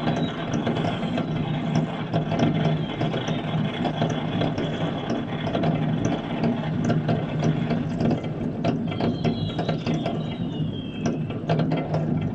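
Dense, unbroken crackle of many firecrackers and fireworks going off across a city. About nine seconds in, a whistling firework glides down in pitch for a couple of seconds.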